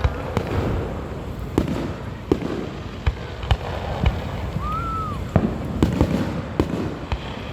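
Fireworks going off: about a dozen sharp bangs at irregular intervals over continuous crackling, with a brief rising-and-falling whistle about two thirds of the way through.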